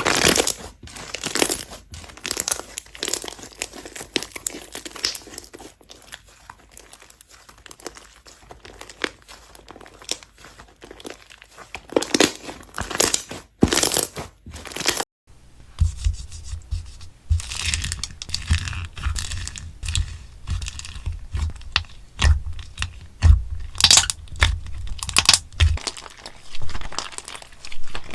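Crunchy slime being squeezed and pressed by hand, giving a dense run of crackling clicks and pops. After a short break about halfway, more crackling follows, now with deeper soft thumps underneath.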